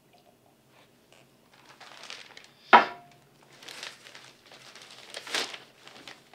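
Newspaper pages rustling and crinkling as the paper is opened and handled, with one sharp knock with a short ring just under three seconds in as a drinking glass is set down.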